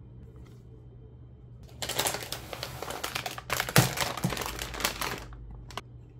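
Plastic packaging crinkling and rustling as it is handled, in two spells starting about two seconds in, with a sharp knock near the middle and a single click near the end.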